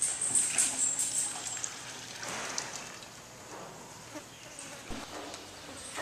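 Milk poured from a small metal pot into a plastic jerrycan, splashing, loudest in the first second and a half with a shorter pour about two and a half seconds in.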